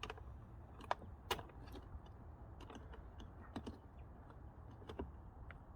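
Scattered light clicks and taps of plastic parts being handled as a replacement caravan locker-door hinge is worked into its frame, over a low steady rumble.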